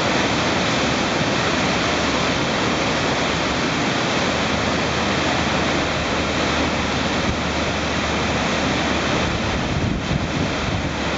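Steady rush of whitewater on a river running high in flood, its fast water churning through big waves.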